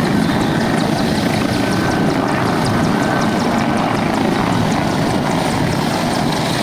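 Military helicopter running: steady, loud rotor and engine noise with a faint high whine in the first half.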